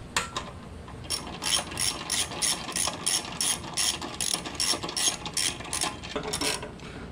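Hand socket ratchet clicking as a 10 mm fuel-tank bolt is backed out, a steady run of about four to five clicks a second that stops shortly before the end.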